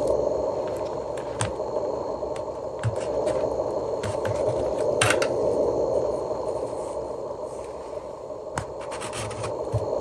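Hands handling a boxed camera's packaging on a wooden table: scattered light scrapes, taps and crinkles, with a sharper click about five seconds in and a quick run of clicks near the end, over a steady background noise.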